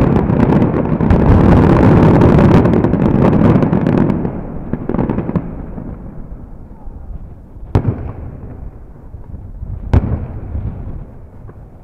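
Aerial fireworks display: a dense barrage of rapid shell bursts for about four seconds, then dying away to a rumble, with two single loud bangs later on.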